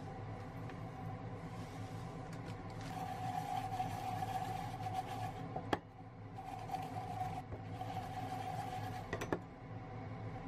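Cut strawberries and sugar being shaken and swirled in a small stainless steel saucepan, a soft gritty rustle in two spells. Each spell ends with a sharp knock of the pan, about six and nine seconds in. A steady low hum runs underneath.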